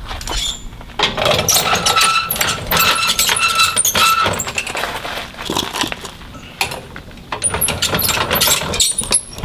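Steel scissor stabilizer jack under a travel trailer being cranked down: metal clinking and rattling with short squeals, in two spells, from about a second in to about four seconds and again from about six and a half to nine seconds.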